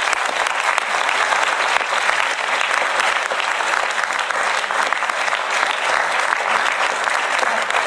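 Audience applauding, a dense, steady clapping that starts suddenly as the talk ends and holds level.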